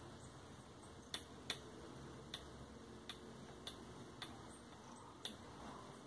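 Rotary program-selector knob on a washing machine control board being turned step by step. It gives a series of light, separate clicks, about seven of them.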